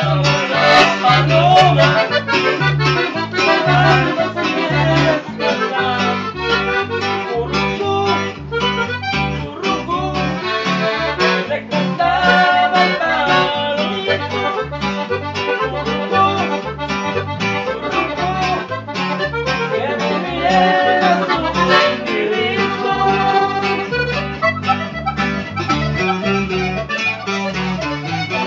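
Live norteño music: an accordion playing the melody over a strummed guitar, with a steady alternating bass line underneath.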